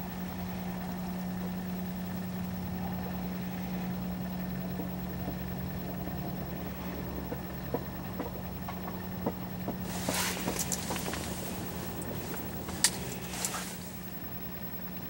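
Steady low hum with a single strong low tone, joined by scattered clicks and, about two-thirds of the way in, a few seconds of rustling noise with sharp clicks.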